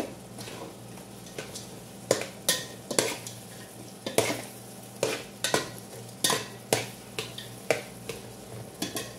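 Metal ladle stirring chicken pieces in an aluminium pot, clinking and scraping against the pot in quick, irregular strokes, over a faint sizzle of the chicken cooking in soy sauce and a steady low hum.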